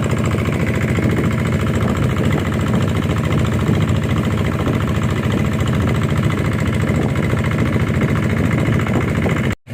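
Small boat's engine running steadily at an even speed. The sound cuts out for a moment just before the end.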